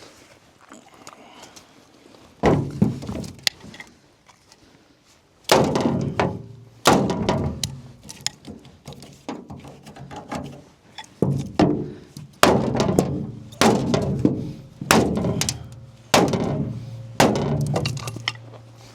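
A hammer striking a welded-aluminum tractor canopy frame to bend it back into shape. There is one blow about two and a half seconds in, then a run of blows roughly one a second, each with a short metallic ring.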